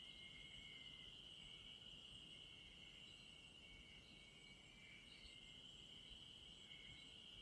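Faint, steady chorus of night insects such as crickets, one high continuous trill with a slightly lower chirping that comes and goes over it.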